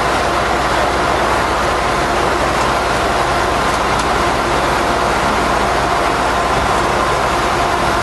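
Diesel engines of working excavators running steadily: a constant, even drone.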